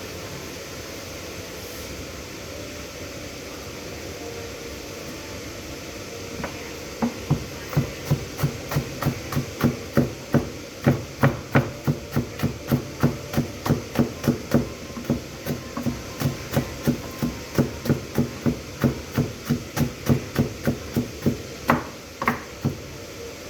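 Kitchen knife chopping rapidly on a cutting board, about three or four even chops a second. The chopping starts about 7 seconds in and stops a little before the end, over a steady background hum.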